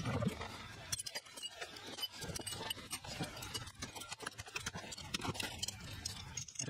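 Irregular light metallic clicks and clinks of hand tools and engine parts being handled during a Harley Twin Cam engine teardown.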